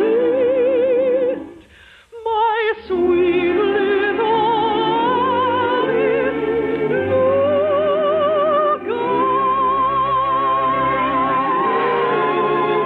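Orchestral show music with a singer holding long notes with wide, even vibrato, in an operatic style. The sound drops out briefly about two seconds in, then the held notes resume.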